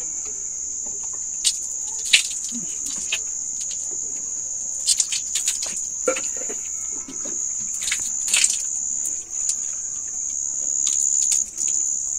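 Crickets trilling steadily on one high pitch, with splashes and knocks of water now and then as hands scoop from a basin to rinse the face.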